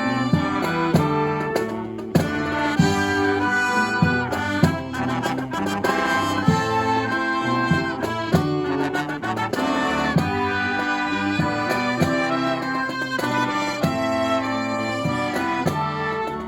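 A marching brass band with drums playing a Christmas song live: trumpets, trombones and saxophones carry the tune over drum hits.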